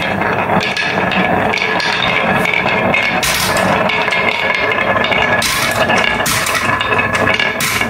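Several marbles rolling fast down a carved wooden wave track, a continuous rattling rumble as they bounce over the bumps, with a few sharper clacks against the wood.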